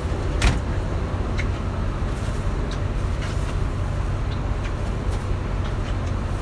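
Steady low rumble of a boat's motor running, with a faint even hum. A few light clicks and knocks sound over it, the loudest about half a second in.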